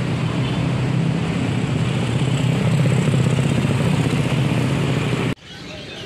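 A motor vehicle engine running steadily with a dense, even pulsing rumble, cut off abruptly about five seconds in.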